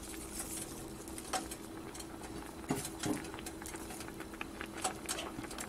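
Lentil stew simmering in a pan, with soft, irregular bubbling pops and crackles over a faint steady hum.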